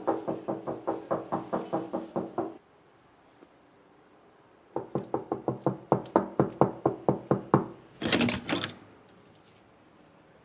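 Rapid knocking in two runs of about six to seven knocks a second, each lasting two to three seconds with a pause between, the knocks ringing with a hollow tone. A short harsh burst of noise follows near the end.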